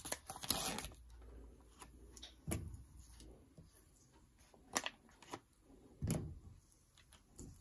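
Plastic packaging crinkling, then a handful of soft knocks and taps as slices of black pudding are set down and pressed into a cast iron skillet.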